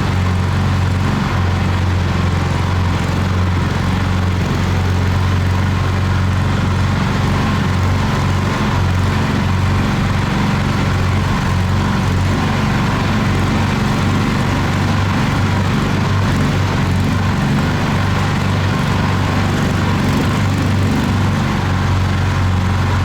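Karakat all-terrain vehicle's engine running steadily under way, a loud even low hum with a rough edge that holds the same pitch throughout.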